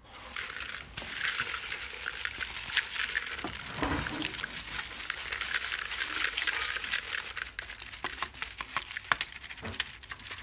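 Dried luffa gourds being shaken and handled over a plastic bowl: the dry brown skins crackle and crinkle while loose seeds fall out and click as they land in the bowl.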